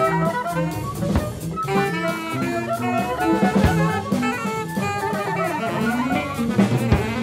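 Jazz band playing: horns carry a melody over a drum kit, with a few heavy drum hits.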